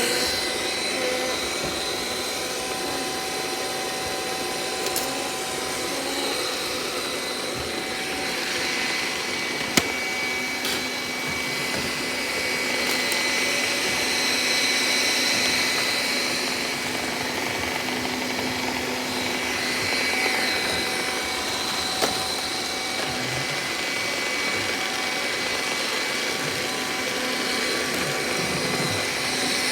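Robot vacuum cleaner running: a steady whirring hiss with a high whine, slowly swelling and easing off, and a sharp click about ten seconds in and again about twenty-two seconds in.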